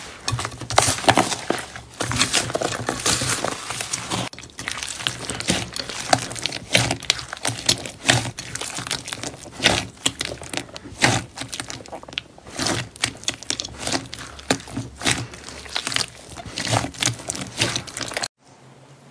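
Hands kneading and squeezing clear slime packed with small foam beads: a dense run of crackling, crinkling pops and squelches. The sound drops away suddenly near the end.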